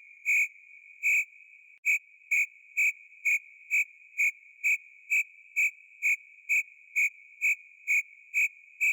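Crickets chirping: a steady high trill with loud, evenly spaced chirps over it, slow at first, then about two chirps a second after a short break near two seconds in.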